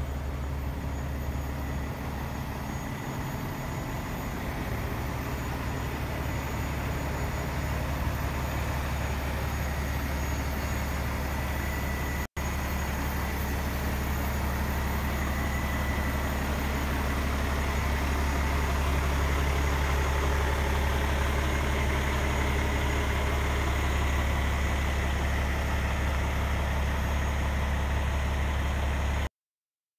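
Heavy diesel truck engine idling steadily, a low even rumble. It cuts out for an instant about twelve seconds in and stops abruptly near the end.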